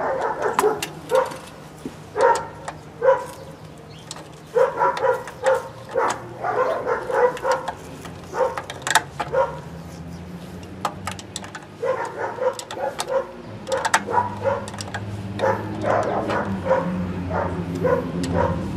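A dog barking over and over in quick runs of short barks with pauses between them; a low steady hum comes in about two-thirds of the way through.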